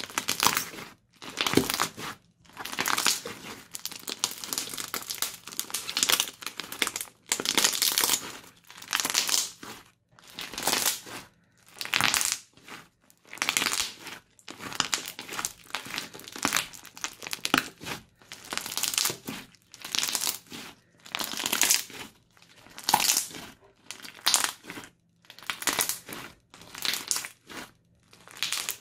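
Crunchy slime being squeezed and kneaded by hand, crunching with each squeeze in a steady run of short bursts, roughly one a second.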